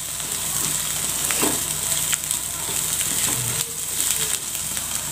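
Sliced onions sizzling in hot oil in a kadai with a steady hiss, stirred with a spatula that scrapes the pan a few times.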